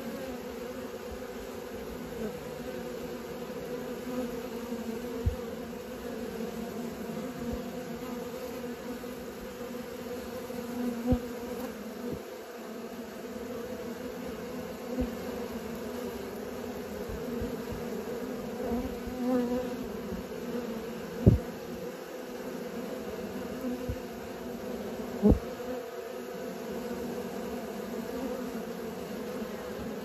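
Many honeybees buzzing at a hive entrance as they take off and land, a steady low hum, typical of young bees making orientation flights. A few short low bumps break into the hum, the loudest about two-thirds of the way through.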